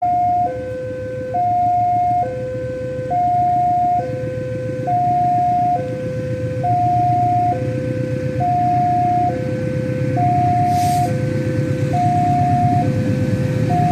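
An electronic two-tone alarm alternates a higher and a lower pitch, each held just under a second, over the steady rumble of a CC 206 diesel locomotive's engine. The rumble grows louder near the end, and a brief hiss comes about eleven seconds in.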